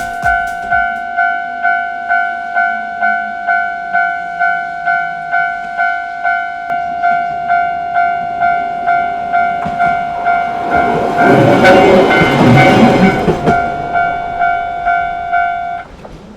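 Japanese railway crossing alarm bell ringing a steady two-note ding, just under twice a second, while a train passes over the crossing. The train's rumble swells a little past the middle, becomes the loudest sound, then fades. The bell stops near the end.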